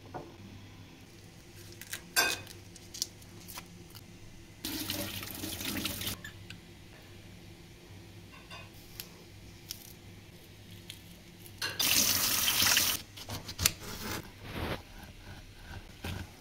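Avocado being prepared in a glass bowl: a spoon scooping cubed flesh from the skin and a knife cutting it against the glass, with scattered clicks and taps. Two loud hissing bursts, each about a second and a half, come about five and twelve seconds in.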